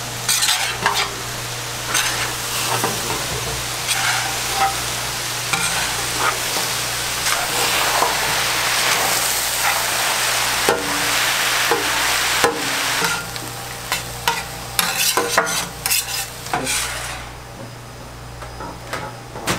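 Sliced onions sizzling on a steel flat-top griddle while metal spatulas stir and scrape them, clacking against the plate. Near the end the sizzle falls away, leaving scattered scrapes and taps over a steady low hum.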